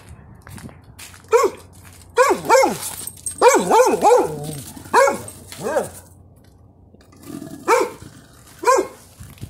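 A dog barking repeatedly, about ten sharp barks in uneven bunches, with a quick run of three or four near the middle.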